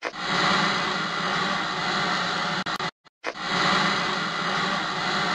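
Loud, harsh static-like electronic noise from an intro logo sound effect, in two long stretches split by a brief break with a few clicks about two and a half seconds in, cutting off suddenly at the end.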